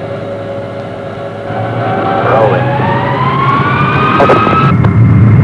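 Lockheed C-5 Galaxy's General Electric TF39 turbofan engines spooling up to takeoff power: a whine rises steadily in pitch for about three seconds over a rumble that keeps growing louder. The whine breaks off near the end while the rumble carries on loud.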